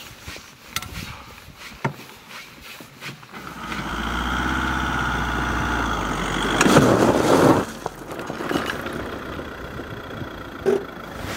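A motor engine running, coming up about three and a half seconds in, loudest for about a second around the middle, then dropping away quickly; scattered clicks and knocks before and after it.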